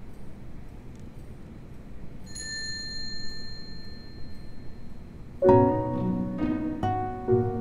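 Soft background music of plucked, harp-like string notes, starting about five and a half seconds in. Before it there is only quiet hiss and a faint high steady tone lasting a couple of seconds.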